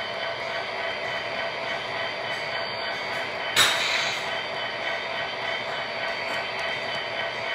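Model freight train cars rolling along the track, a steady rolling rumble with a faint hum. One sharp click comes about halfway through.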